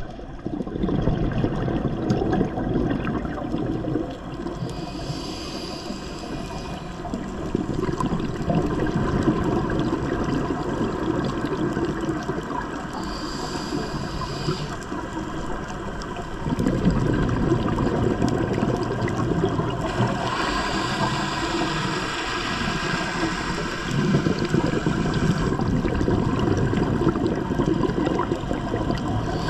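Scuba diver breathing through a regulator underwater: a hissing inhale followed by a long, rumbling burble of exhaled bubbles, repeating about every eight seconds.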